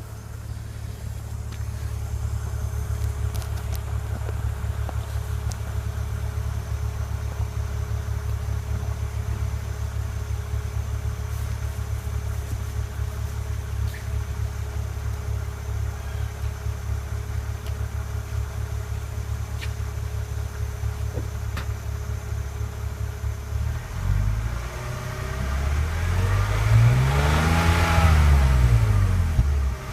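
BMW car exhaust with the engine idling steadily. In the last few seconds the engine is revved several times, pitch rising and falling with each blip.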